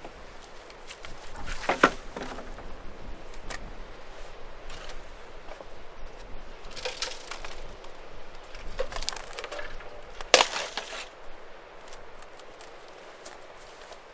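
Old wooden boards with nails in them being handled and dropped: wooden knocks and clatter, the two loudest about two seconds in and about ten seconds in, with shorter scrapes and rustles between.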